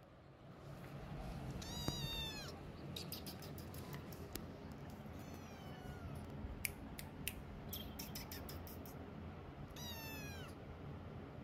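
Orange-and-white kitten meowing three times. Each meow is high and falls in pitch. There are scattered light clicks between the calls.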